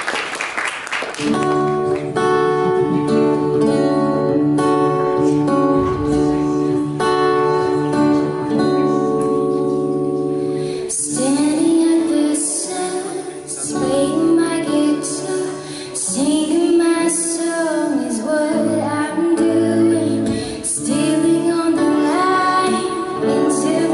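Solo acoustic guitar playing an intro, then a woman's voice begins singing over the guitar about eleven seconds in.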